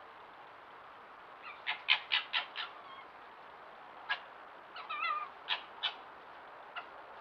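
Short harsh animal calls. A quick run of five comes about a second and a half in, then single calls follow, with a wavering, whining call near the middle.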